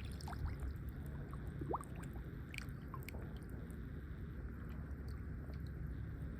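Gently moving water gurgling and lapping, with scattered small pops and clicks and a short upward-sliding bubble chirp about one and a half seconds in.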